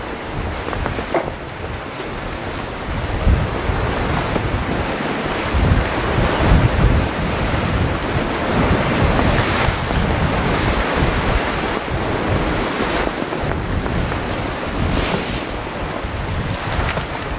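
Ocean surf breaking and washing against rocks, swelling and easing, with wind rumbling on the microphone.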